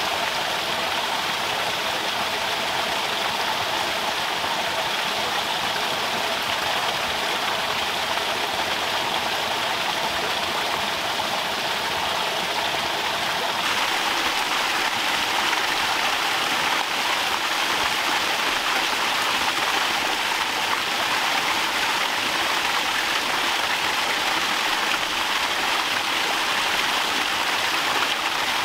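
Water running from a bamboo pipe and splashing steadily into a small pond, a constant rushing splash that gets a little louder about halfway through.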